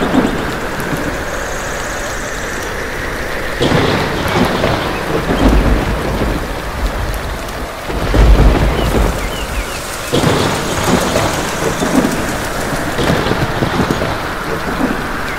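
Thunderstorm: steady heavy rain with rolling thunder. Deep rumbles build about five seconds in, are loudest about eight seconds in, and come again near the end.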